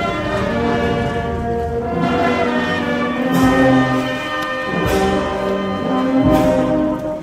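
Slow, solemn march music with held brass notes. In the second half, three drum-and-cymbal strokes land about a second and a half apart, like a funeral march accompanying a procession.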